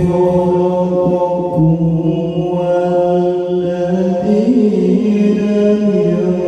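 A qori's melodic Qur'an recitation (tilawah), holding long drawn-out notes with an ornamented pitch turn about four seconds in, heard through a sound system's vocal delay (tap delay) effect.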